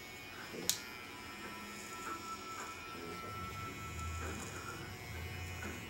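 Barber's electric hair trimmer buzzing steadily as it cuts hair close to the skin, with one sharp click under a second in.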